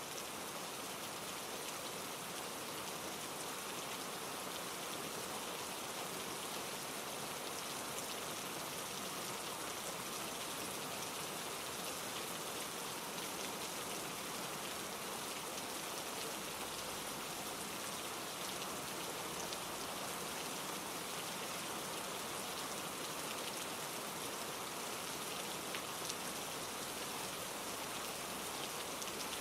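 Steady heavy rain falling on leaves and rocks, an even hiss with fine scattered drop ticks, mixed with wind through the trees and a mountain stream tumbling over rocks.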